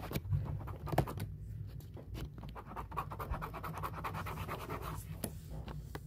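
A stylus tapping and scratching on a smartphone's glass touchscreen while drawing: a run of light, irregular clicks, a few of them louder.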